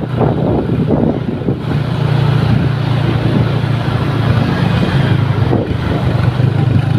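Large bus's diesel engine running close by: a steady low drone with road noise.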